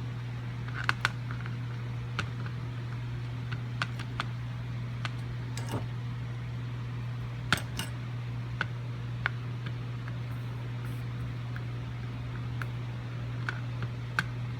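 Light, irregular clicks and taps of a soldering iron and solder wire against the copper-foiled edge of a stained-glass piece, over a steady low hum.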